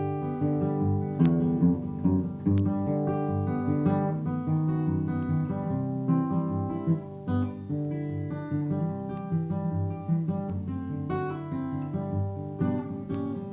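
Solo acoustic guitar playing a chord pattern in a steady rhythm, its picked notes ringing over one another.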